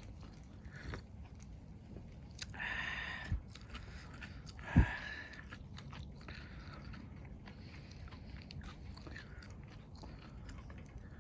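Eating sounds: close-up chewing and biting. There is a small knock about three seconds in and a sharper, louder knock just under five seconds in.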